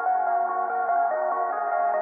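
Background outro music: a melody of short stepped notes over sustained chords.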